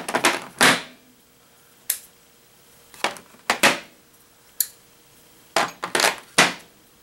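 Steel sockets, extensions and adapters of a mechanic's socket set clicking and clinking against each other and into the moulded plastic case as they are set back into their slots, in a few quick clusters of clicks with short pauses between.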